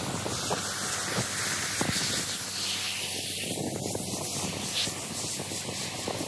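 Water spraying hard onto a car's dirty bodywork, a steady hiss with small splatters, washing off caked dirt, mud and dust.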